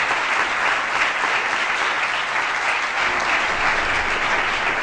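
Audience applause in a lecture hall: many hands clapping in a dense, steady patter.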